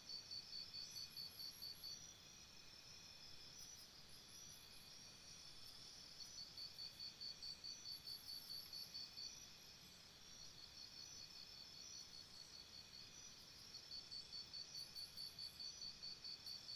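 Crickets calling, faint. One cricket gives trains of evenly spaced high chirps, about four or five a second, in bouts of two to three seconds: near the start, about halfway, and near the end. Others keep up a steady high trill underneath.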